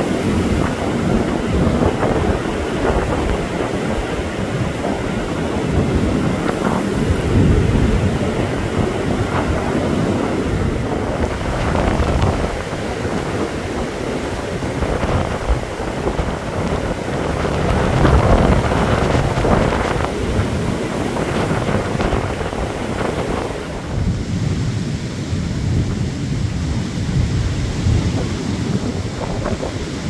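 Blizzard wind buffeting the microphone: a loud, low rumbling rush that swells and eases in gusts.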